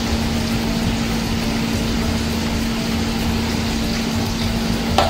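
Liquid poured steadily from a bottle into a pot heating on a gas burner, over a steady rushing hiss and a low hum. A short knock near the end.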